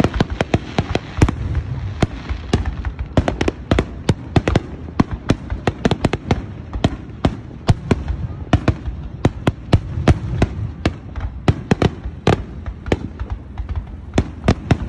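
Aerial fireworks shells bursting in a dense, irregular run of sharp bangs, several a second.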